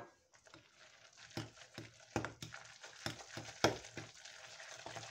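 Fork stirring wet grated-potato pancake batter in a glass bowl, mixing in the flour. Irregular wet scraping, with sharper clicks where the fork knocks the glass.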